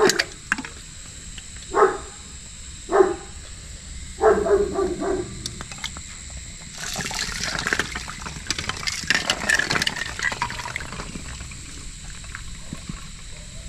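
Hand swishing through ice water in an inflatable ice-bath tub, a sloshing, splashing run that starts about seven seconds in and lasts some four seconds. It is preceded by a few short, high yelps in the first five seconds.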